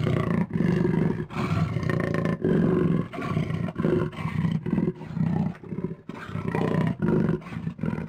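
A lion roaring in a rapid run of about a dozen short, low, grunting calls that ends abruptly.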